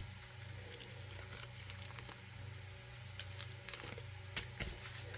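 Faint scattered clicks and rustles of small plastic bags of diamond painting drills being handled, over a low steady hum.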